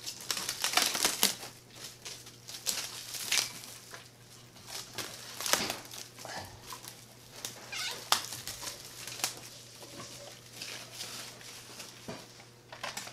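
Metallic plastic tinsel streamers on a child's bike handlebar rustling and crinkling as they are handled and spread out, with irregular light clicks and taps from the bike being handled.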